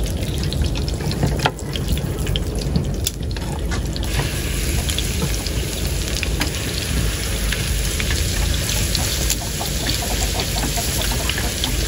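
Steady rain falling, a continuous hiss with scattered drips and patters, heavier from about four seconds in.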